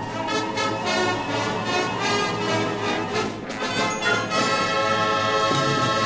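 A high school concert band plays: brass chords over repeated percussion strikes, then the full band holds a sustained chord from about four seconds in.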